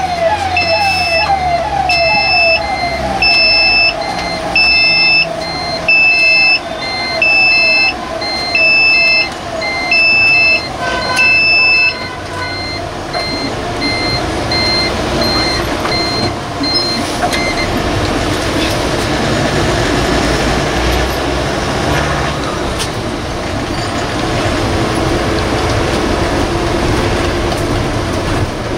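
Force Motors AC bus's warning alarm beeping inside the cabin, a loud electronic beep repeating a little under once a second, typical of its door-open alarm, and stopping about 12 seconds in, while a second, fainter beep runs on a few seconds longer. After that the bus's steady running and road noise is heard from inside as it moves off.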